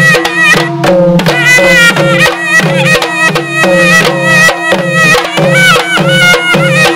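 A Kerala folk drum-and-pipe ensemble playing: barrel drums struck with sticks and hands and small hand drums keep an even beat of about three to four strokes a second. Over them a small wind pipe plays a shrill, bending melody, which breaks off briefly about a second in.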